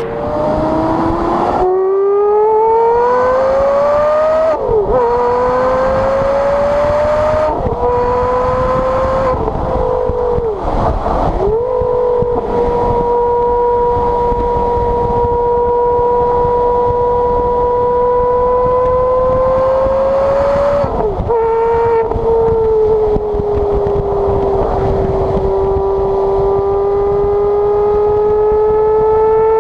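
Porsche Carrera GT's 5.7-litre naturally aspirated V10 heard at its exhaust, accelerating through the gears. The pitch climbs and drops back at each of three quick upshifts in the first ten seconds. After that the engine runs at fairly steady cruising revs, with one more dip about twenty seconds in, and the revs creep up again near the end.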